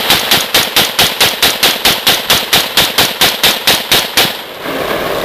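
Rifle fired in a rapid string of about twenty evenly spaced shots, roughly five a second, stopping a little over four seconds in.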